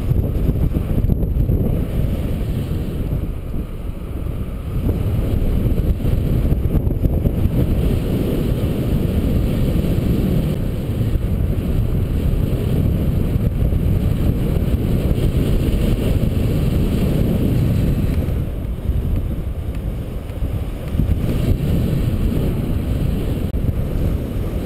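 Airflow of paraglider flight buffeting the camera microphone: a steady low rumble that swells and eases in gusts.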